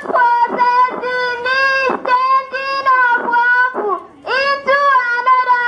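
A young girl singing into a microphone in a high voice: a run of held notes on nearly one pitch, with a short break about four seconds in.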